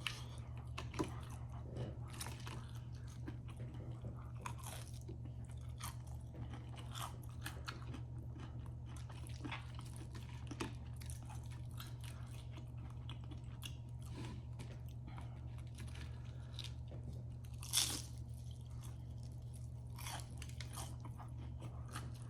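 Close-miked chewing of crispy fried food, with scattered crisp crunches throughout and one sharper crunch near 18 seconds. A low steady hum runs underneath.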